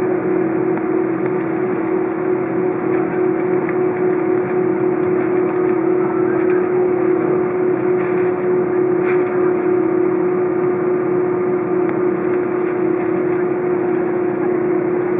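Steady engine hum inside an Airbus A330's cabin as the jet taxis on idle thrust, with one constant droning tone over an even rush of noise.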